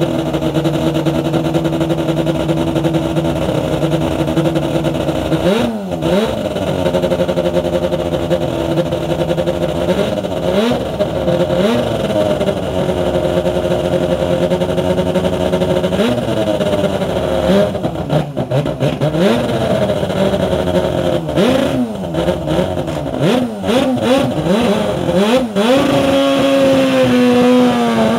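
Norton NRS588 twin-rotor Wankel racing engine running at idle, the throttle blipped again and again so the revs rise and fall quickly. The blips come more often in the second half, and the revs are held higher near the end.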